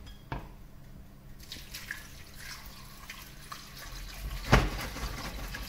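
Water running and splashing into a pot to cover the vegetables, starting about a second and a half in, with a short click near the start and a sharp knock about four and a half seconds in.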